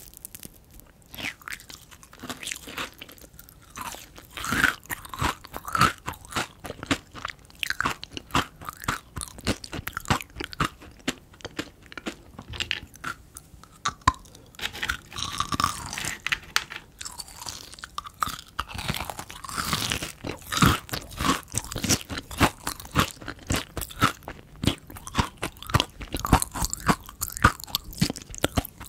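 Close-miked chewing of kohakutou crystal candy: the crisp sugar crust crackles and crunches between the teeth in many small, irregular crunches, with wet chewing of the jelly inside.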